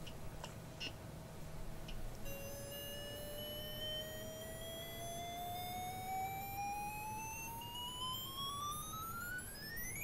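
TRS-80 Model 4's sound board test: a beeping tone comes in about two seconds in and glides steadily upward in pitch, slowly at first and then faster and faster, ending very high near the end.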